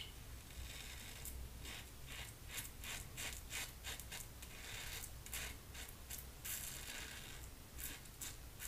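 Frank Shaving double-edge safety razor cutting through two days of stubble under lather: faint, short scraping strokes, about two a second, with a lot of audible feedback from the blade.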